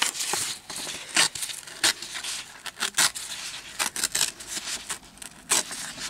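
A sheet of printed music paper being torn by hand, a dry ripping that comes in a series of short, uneven pulls.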